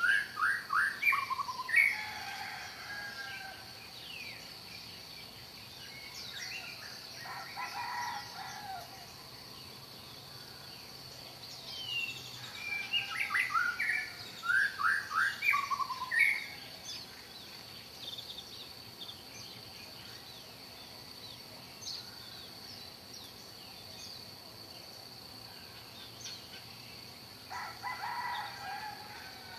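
Songbirds singing in bursts of quick, falling whistled notes, repeated a few times with pauses between, over a faint steady high-pitched tone.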